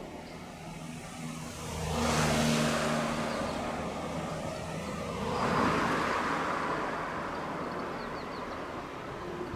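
Two vehicles passing close by, one swelling up and fading about two seconds in and another about five and a half seconds in, over a steady low engine hum.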